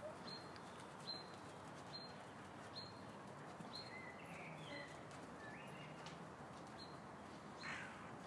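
Small birds chirping faintly: a short high chirp repeated about once a second, with a few other brief chirps and whistles in the middle and near the end.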